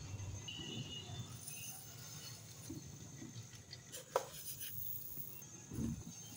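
Faint scraping and pattering of granulated sugar being scooped with a plastic spoon and tipped into a steel pot of milk, with one sharp tap about four seconds in.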